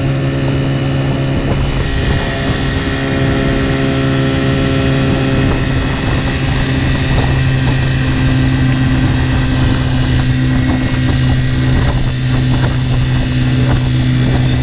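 A 1975 6 hp two-stroke outboard motor running steadily at full throttle, pushing a small aluminium boat, with water rushing along the hull.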